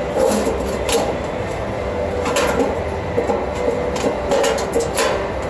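Stainless steel sheet panels of a box being handled and fitted, giving about six light metallic clinks and knocks over a steady machine hum.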